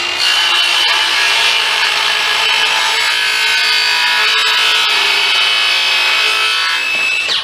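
Circular saw spinning up and cutting through a warped pine board, trimming about a kerf's width off it. A steady high motor whine runs over the noise of the blade in the wood and winds down near the end.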